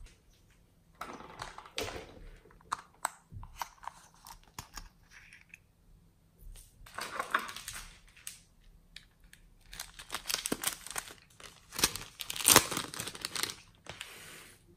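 Hands working a glass tray of glitter-topped slime and clay pieces: irregular crackling and crinkling with sharp clicks, loudest in bursts about halfway through and again toward the end.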